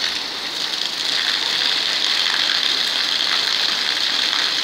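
Heavy rain falling steadily onto a wet concrete floor, a constant even hiss of water.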